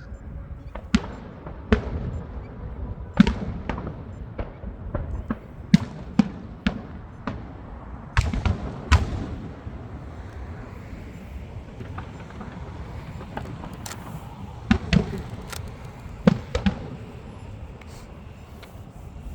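Fireworks exploding in a show: irregular sharp bangs and cracks, a few of them much louder, over a continuous low rumble.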